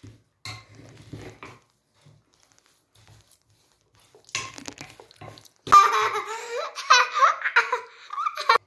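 Young child laughing loudly and squealing for the last three seconds, cutting off suddenly. Before that come a few faint clicks and knocks.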